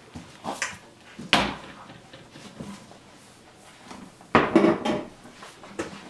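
Wooden cabinet door knocking and rattling against its frame as puppies push and paw at it: a few sharp knocks, the loudest about a second and a half in, and a busier cluster of knocks a little past four seconds.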